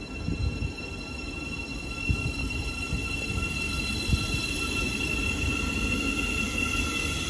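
Thameslink Class 700 electric train moving slowly past on the platform line, its traction motors giving a whine of several steady high tones that rise in pitch towards the end as it picks up speed, over low wheel rumble. Two sharp knocks come about two and four seconds in.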